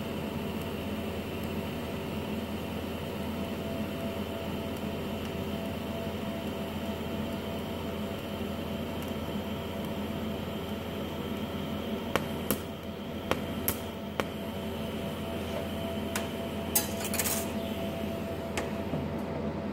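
TIG welding a steel hinge tab onto a steel sleeve, with the welding set's steady hum under the arc. About twelve seconds in, several sharp clicks come as the arc is switched on and off with the torch button to control the heat at the end of the bead, in place of downslope. A short metallic clatter follows near the end.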